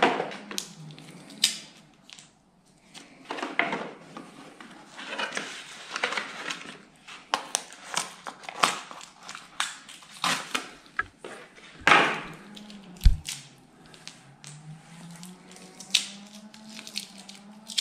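Hand work on a snowmobile ski's carbide runner hardware: small metal nuts and parts clicking and scraping, mixed with crinkling of paper packaging, in irregular handling noises. One sharper knock comes about three-quarters of the way through.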